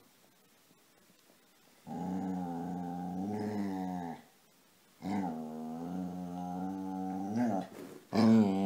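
Dog making long, low, drawn-out growling moans, three in a row, each wavering in pitch; the first comes about two seconds in and the last, louder one starts near the end.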